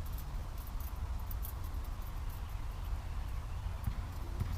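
Faint light clicks and scratches from a small metal spring clip and bug screen being worked into place by hand, over a steady low wind rumble on the microphone.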